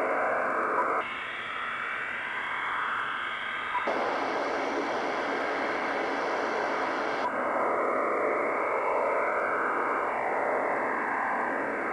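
Shortwave receiver audio: a steady rushing hiss of static carrying a faint wavering signal, which the listener takes for the HAARP transmitter in Alaska. The tone of the hiss changes abruptly about a second in, again around four seconds, and again around seven seconds.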